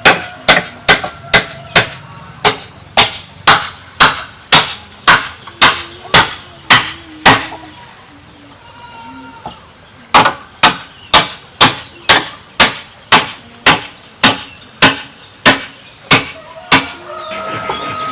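Steady, evenly spaced blows of a hand tool striking bamboo, about two a second, in two long runs with a pause of about three seconds between them.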